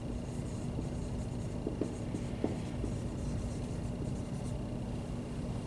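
Dry-erase marker writing on a whiteboard: short scratchy strokes with a few small ticks as the tip meets the board.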